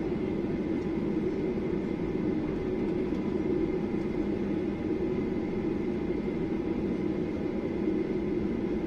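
Inside the cabin of a Boeing 737-800 taxiing on the ground: its CFM56 jet engines running at low power, a steady rumble with a few thin, steady whining tones above it.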